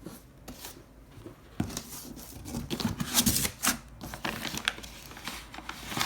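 Irregular rustling, crinkling and light knocks of handling noise, busier from about a second and a half in.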